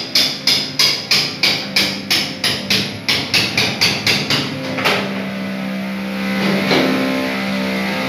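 Background music: a steady tapping beat, about three taps a second, over held tones. The beat stops about five seconds in, leaving sustained pitched tones.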